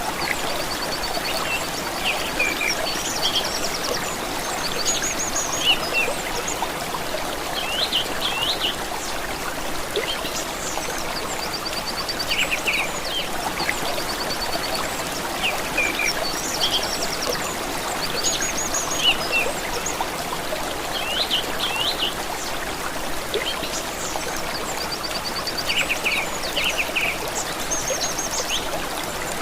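Small stream of water running steadily, with songbirds singing over it: short high trills and quick chirps coming every few seconds.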